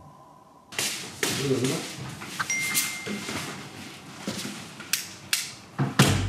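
Sharp knocks and clatters in quick, irregular succession, starting suddenly about a second in, with a brief thin high tone around the middle.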